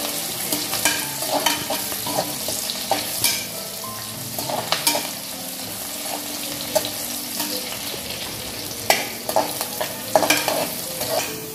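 Sliced onions sizzling in hot oil and ghee in an aluminium pressure cooker as they sauté, stirred with a metal spatula that scrapes and taps against the pan every second or two.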